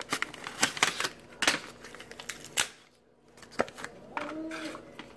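Sharp clicks and taps from small metal-and-plastic phone ring kickstands being handled and set down on a granite countertop. There is a quick run of them in the first few seconds and one more about three and a half seconds in.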